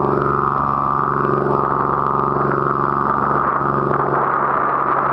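A boat's engine running steadily, a low hum of several even tones, with a rushing hiss growing over it about two seconds in.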